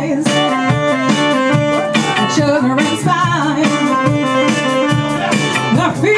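Live rock band playing loudly with a steady beat: a woman singing lead over saxophone, electric guitar and bass guitar.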